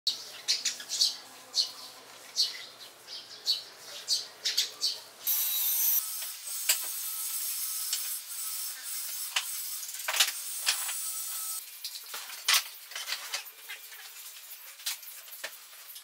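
Pencil scratching along a bent thin metal strip as it draws a curve on a wooden board: a steady high hiss lasting about six seconds, starting about five seconds in. Before it come many sharp clicks and ticks, and after it lighter ticks and taps.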